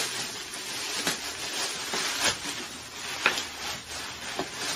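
Clear plastic bag and packing paper crinkling and rustling as an item is unwrapped by hand, with a few sharper crackles about a second apart.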